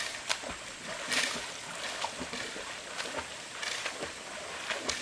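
Water splashing as swimmers kick in a river, in several short splashes, the loudest about a second in.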